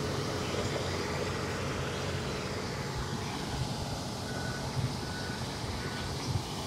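Wirtgen cold milling machine running as it mills asphalt, a steady low rumble. From about four seconds in, a reversing alarm beeps about once every three-quarters of a second.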